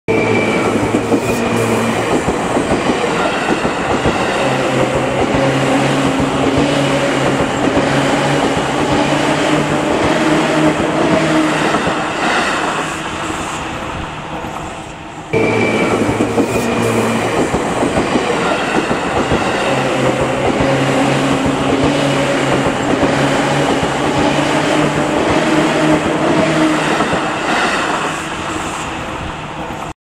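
Seibu Shinjuku Line electric commuter train passing close by: a steady rumble of wheels on the rails with a motor hum. It fades a little, then cuts back in abruptly about halfway through.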